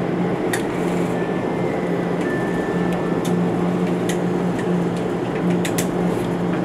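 Steady drone of a Fjellstrand FlyingCat 50 high-speed catamaran ferry underway at speed, heard from inside its passenger cabin, with a low even hum and a few faint clicks.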